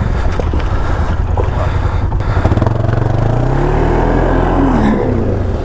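ATV engine running under throttle, its note climbing through the middle and dropping back near the end, as the stuck quad is worked to free it.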